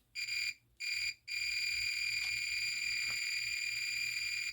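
Multimeter continuity beeper sounding: two short beeps, then one long steady high-pitched beep that holds for about three seconds. The beep signals continuity between the probed conductors, the short in the XLR cable under test.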